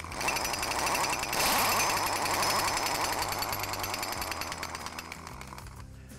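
Pneumatic impact wrench hammering rapidly as it drives a puller's forcing screw to press the clutch pack off the Twin Disc PTO shaft taper. It starts at once, is loudest about a second and a half in, and fades out after about five seconds.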